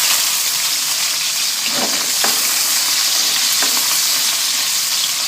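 Red onion and garlic sizzling loudly in hot oil in a wok, a steady frying hiss. A few light knocks about two and three and a half seconds in.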